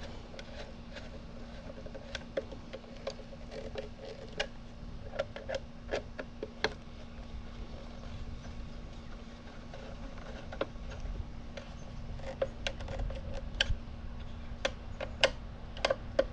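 Irregular small clicks and taps of hand tools and small parts being handled on the lathe's housing, over a steady low hum.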